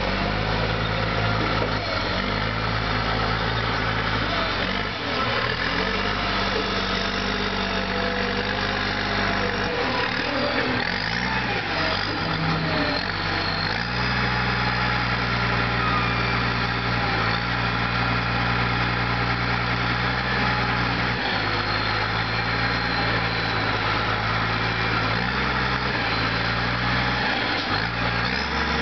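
Case wheel loader's diesel engine running as the front bucket is worked, its speed stepping up and down every few seconds.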